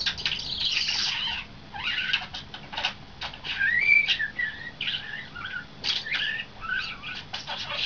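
Pet starling singing a rambling run of rapid clicks, rattles and chatter. About halfway through, a whistled note rises and then falls in a wavering glide.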